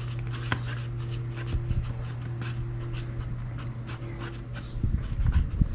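Wooden stir stick scraping and stirring two-part JB Weld epoxy in a cardboard egg-carton tray: a run of quick scratchy strokes, with a few dull knocks about five seconds in, over a steady low hum.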